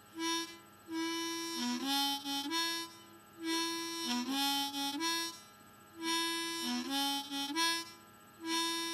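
Key-of-A diatonic harmonica playing a simple train-rhythm riff in single notes on the low holes, alternating draw and blow notes. The short phrase repeats about three times with brief pauses, a fourth beginning near the end.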